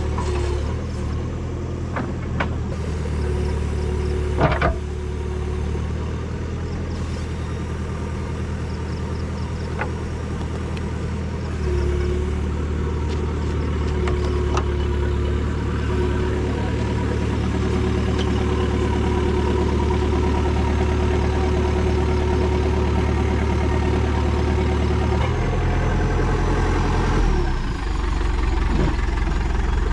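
JCB backhoe loader's diesel engine running steadily, then working harder from about twelve seconds in as it hauls a stuck 4x4 up a dirt slope on a tow rope. A sharp knock comes about four seconds in, and the engine note shifts a few seconds before the end.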